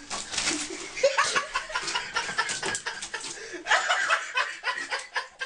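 A person laughing off and on.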